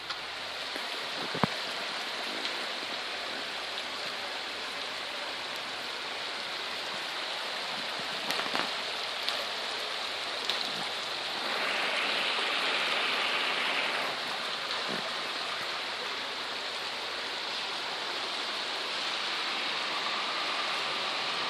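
Heavy rain and muddy runoff water rushing over the ground, a steady hiss with a couple of sharp clicks; it grows briefly louder about twelve seconds in.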